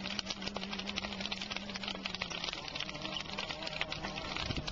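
Wood bonfire crackling and popping in a dense, steady run of small snaps. A low steady hum sits under it and fades out about halfway through.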